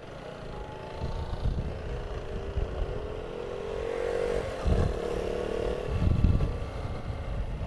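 Motorcycle engine running under way on a steep uphill road, its note rising a little midway, with a gusty low rumble of wind on the microphone.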